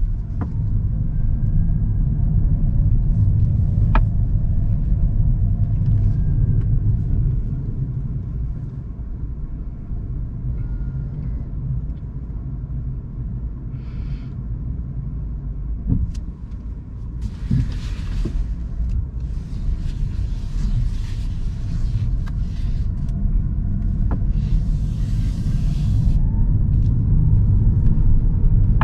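Steady low driving rumble inside a Toyota C-HR's cabin on the move. It eases off in the middle and builds again near the end, with two short rushes of hiss past the middle.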